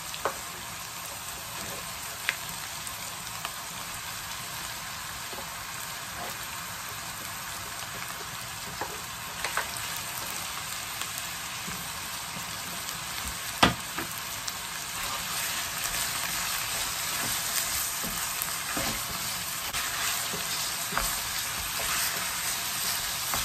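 Minced pork sizzling in a frying pan of sautéed onion, garlic and red bell pepper, with a steady hiss and a sharp knock about halfway through. The sizzle gets louder in the last third as the mince is stirred with a wooden spoon.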